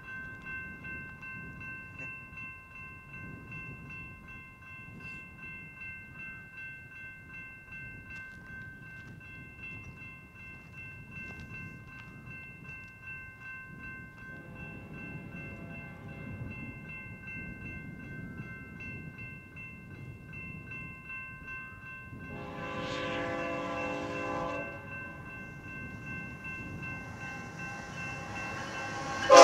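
Horn of an approaching BNSF freight locomotive: a faint long blast from about halfway, a louder blast about eight seconds later lasting some two seconds, and a loud blast starting right at the end.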